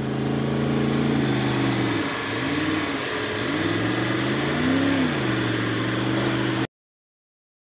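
Truck engine revving up and down in slow swells, one every second or two, over a steady hiss, while a pickup tows a stuck semi-truck on a strap through snow. The sound cuts off suddenly about a second before the end.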